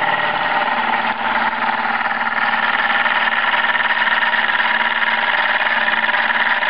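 Bowman M101 model stationary steam engine running steadily at speed, with a fast, even beat.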